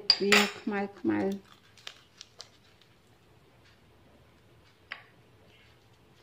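A woman's voice speaks briefly at the start. Then a few faint clicks and light rustles come from a leaf-wrapped packet of paste being handled over a clay mortar, one sharper click coming about five seconds in.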